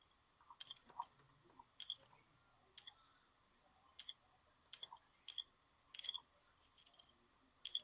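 Near silence broken by faint, short clicks at irregular intervals, about a dozen across the stretch.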